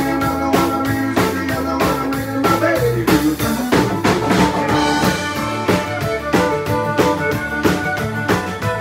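Live country-rock band playing, with drums keeping a steady beat under bass and guitar.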